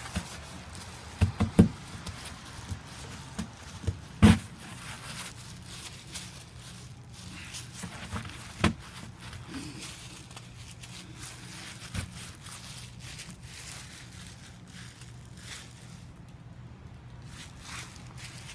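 Gloved hand scooping, scraping and packing snow, with soft crunching and a few sharp knocks, most of them in the first few seconds; a low steady hum runs underneath.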